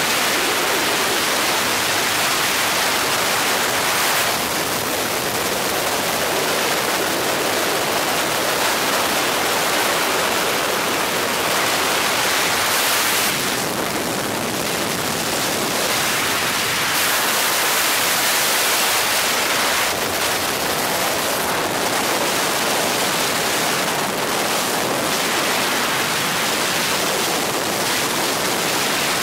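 Steady, loud rushing noise of a helicopter in flight, engine, rotor and wind noise blended into an even hiss.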